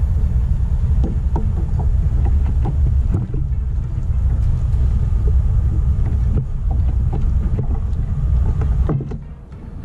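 Loud, steady low rumble with scattered light clicks and knocks over it; the rumble drops away briefly near the end.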